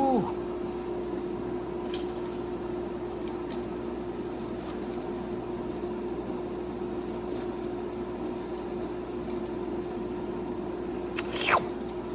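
Steady mechanical hum of a kitchen appliance fan at one constant pitch, with a short scraping clink near the end.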